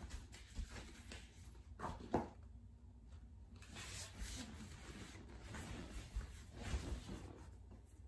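Two sharp joint pops in quick succession about two seconds in, from a leg being swung and rotated, amid the rustle of clothing and bare limbs shifting on a rubber yoga mat.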